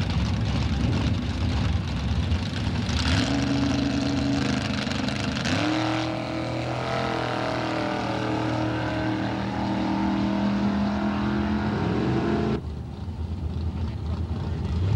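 Drag-racing cars' engines rumbling at the starting line, then launching at full throttle: about three seconds in the sound jumps louder and the engine note climbs in steps as the cars accelerate down the strip, staying high until it drops off suddenly near the end.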